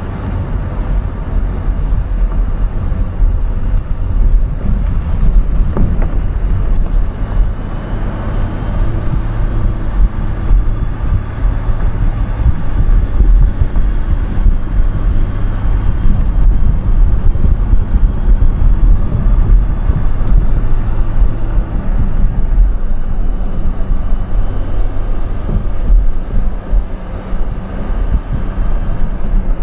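Car driving: steady engine and road noise, with wind rumbling on the microphone.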